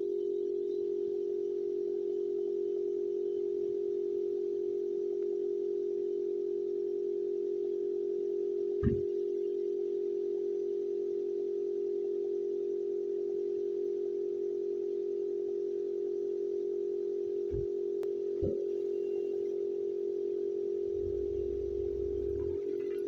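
Air compressor running, heard through a low-quality phone microphone as one steady, even drone like a dial tone. A few dull knocks are heard over it, and a low rumble comes near the end.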